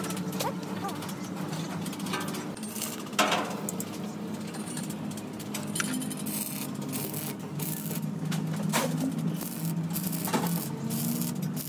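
Arc welding on steel sheet: short bursts of crackling arc in the second half as tack welds are laid, over a steady low hum. A sharp knock about three seconds in.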